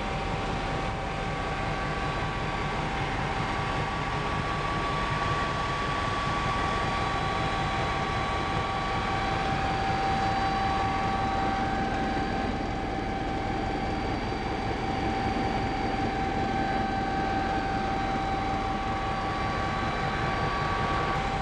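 Helicopter in steady cruising flight heard from inside the cabin: a dense, even engine-and-rotor noise with several steady whining tones over it, unchanging throughout.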